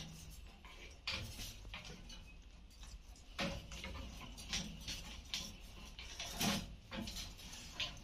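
Alexandrine parrots eating watermelon from a steel bowl: a string of short, irregular clicks and taps as their beaks knock against the metal and bite the wet fruit, the loudest about two-thirds of the way through.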